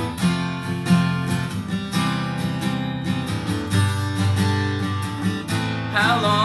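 Acoustic guitar strummed in steady chords, an instrumental passage between sung lines. Near the end a man's voice comes in singing over it.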